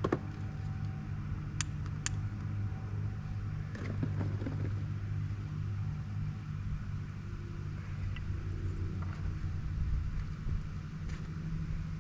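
Piston engine of a low-flying propeller airplane, taken for a crop duster, droning steadily overhead. A couple of sharp clicks come about a second and a half to two seconds in.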